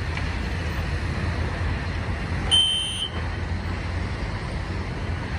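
System Sensor SpectrAlert Classic fire alarm horn giving one short, high-pitched blast about halfway through, part of a repeating blast roughly every 11 seconds for a sprinkler alarm. A steady low traffic rumble runs underneath.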